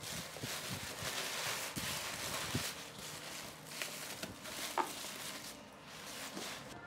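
Packing paper rustling and crinkling as hands dig through a cardboard box, loudest in the first few seconds, with a few light knocks.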